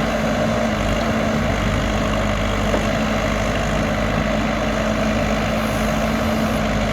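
Heavy diesel engine running steadily at an even speed, with no revving or change in pitch.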